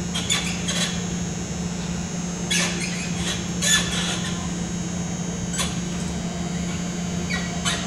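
Uneven bars squeaking and creaking under a gymnast's swings, in short squeaks several times, the loudest about halfway through, over a steady low hum.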